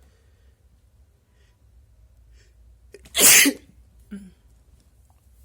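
A person's induced sneeze: one loud, sharp sneeze about three seconds in, lasting about half a second, followed a moment later by a short, quieter sound.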